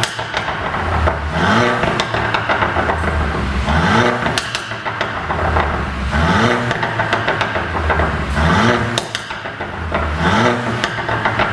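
Mercedes-Benz W205 C200's turbocharged four-cylinder engine revved again and again, about six blips. Each blip is followed by a rattling run of pops and crackles from the exhaust on the overrun, the effect of a pop-and-crackle engine tune.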